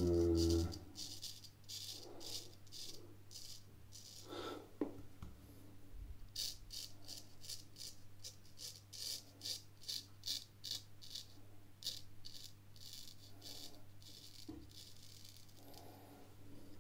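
Drew Dick 8/8 smiling straight razor cutting through lathered stubble. Each stroke is a crisp, crackling scrape, in quick runs of short passes several times a second.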